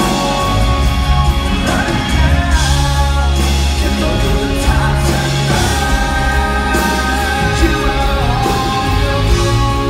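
Live contemporary Christian pop-rock band performing: a man singing lead into a microphone over electric guitars, drums and keyboard.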